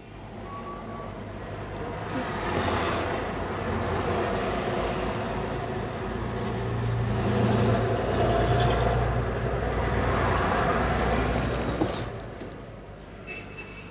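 Peugeot 505 station wagon driving past, engine running and tyres on the road. The sound swells over the first couple of seconds and fades near the end, with one sharp click just before it fades.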